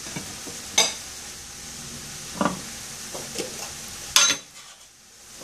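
Diced vegetables sizzling in a frying pan with a little water, next to a pot of boiling noodles, with three sharp clinks of kitchenware, the loudest about four seconds in. The sizzling drops away near the end.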